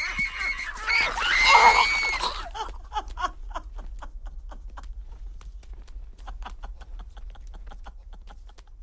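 An animal cry with gliding pitch over the first couple of seconds, then a steady train of short clicks, about three or four a second, slowly fading, over a low hum.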